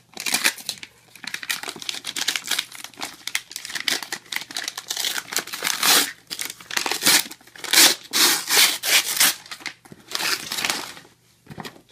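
Parcel packaging being torn open and crumpled by hand: irregular rustling, crinkling and tearing, with a short pause near the end.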